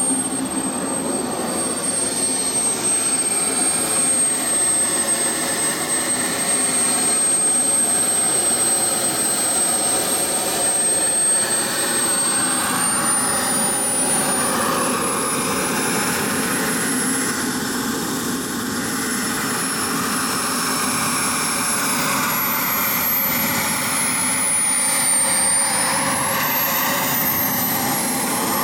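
JetCat P-60 model jet turbine running: a steady rushing roar under a thin high whine. The whine steps up in pitch about halfway through and swings up and down several times near the end.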